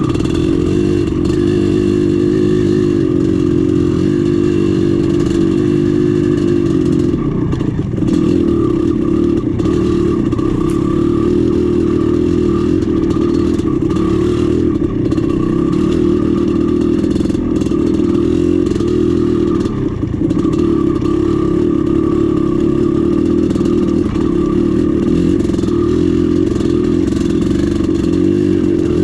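Dirt bike engine running steadily under throttle while being ridden. The engine note drops briefly twice, about seven seconds in and again about twenty seconds in.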